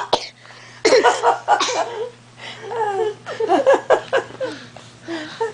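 Laughter mixed with a small child's high voice making short gliding, bending sounds, loudest in the first two seconds and trailing off after about four seconds.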